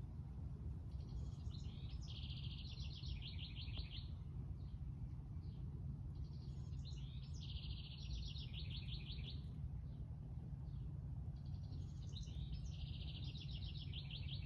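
A small songbird singing the same song three times, about five seconds apart: each a few short high notes running into a fast, even trill lasting a second or two. A steady low rumble runs underneath.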